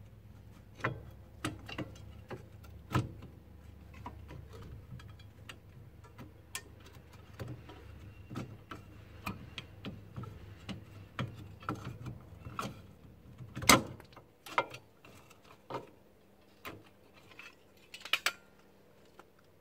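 Irregular metallic clicks and clinks of a trailer drum brake's shoes, springs and adjuster being worked off the backing plate by hand, with one loud clank about two-thirds through and a sharp double clank near the end. A low background rumble stops about two-thirds through.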